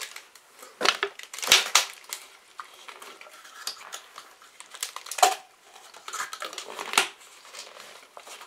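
Plastic sweet packaging and a clear plastic cup crinkling and crackling as they are handled, in irregular bursts, loudest about a second and a half in.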